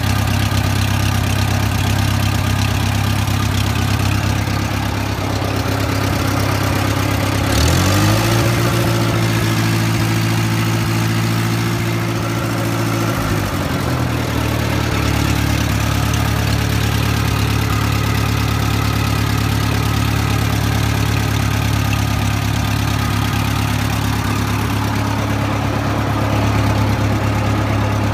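Bobcat skid steer's Wisconsin four-cylinder gasoline engine idling shortly after a cold start. It is revved up about seven seconds in, held there for about five seconds, then drops back to a steady idle.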